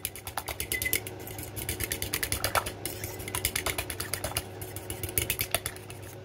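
Metal fork beating a raw egg in a ceramic bowl: quick, rhythmic clinking taps of the tines against the bowl, several a second.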